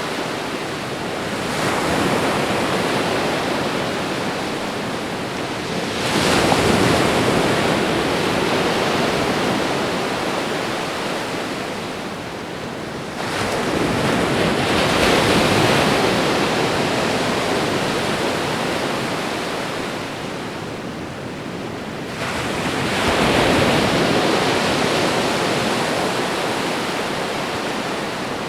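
Ocean waves breaking and washing up the shore. Four surges several seconds apart, each swelling quickly and then fading slowly.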